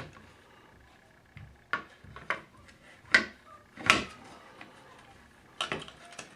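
About five separate knocks and clicks of Mossberg Tactical 22 rifle parts being handled and set down on a work surface, the loudest two near the middle.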